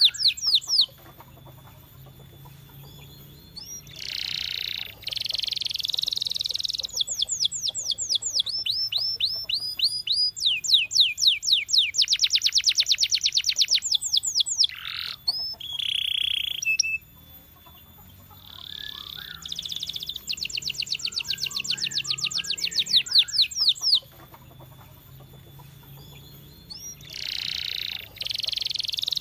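Domestic canary singing: long phrases of fast trills, rows of rapidly repeated high notes and quick sweeps, broken by short pauses about a second in, around the middle and again in the last third.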